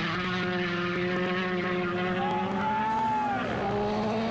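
Rally car engine running hard at high revs. Its pitch climbs, dips briefly about three and a half seconds in, as at a gear change or lift off the throttle, and then climbs again.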